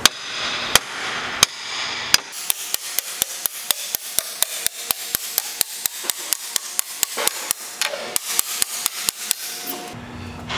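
Hammer pounding the last plates into the journal box of an EMD SW7 locomotive truck, compressing the assembly. Four spaced blows come first, then a fast, even run of about five blows a second for several seconds.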